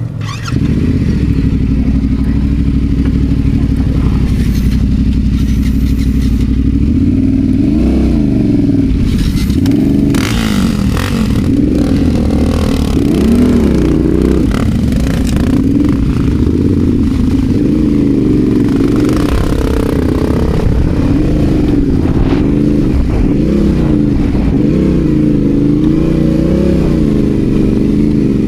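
Adventure motorcycle engine riding off road. It picks up loudly about half a second in, then its revs rise and fall over and over as the throttle is worked. Clattering knocks come about ten seconds in and again around twenty seconds.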